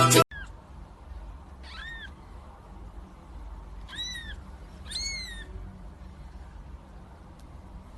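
Cat meowing: a few short, high-pitched meows, each rising then falling in pitch, about two, four and five seconds in.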